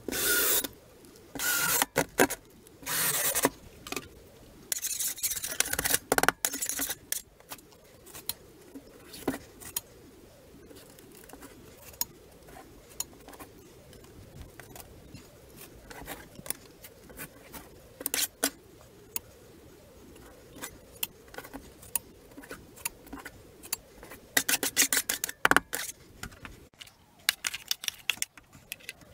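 Cordless drill running in three short bursts, driving screws through a drywall ceiling patch. Then a long stretch of scattered small clicks, scrapes and rustles from tools and drywall tape being handled, thickest near the end.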